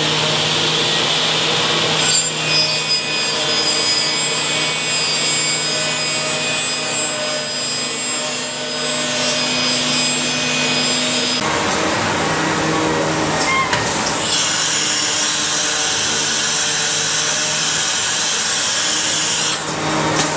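CNC woodworking router's spindle cutting timber, a high whine over the steady hum of the machine and its dust extraction. The cutting starts about two seconds in, eases off briefly just past the middle, then resumes and stops near the end.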